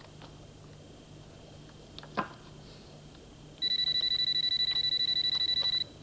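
A telephone ringing electronically: one rapid, trilling ring about two seconds long, starting a little past halfway. A single short knock sounds about two seconds in.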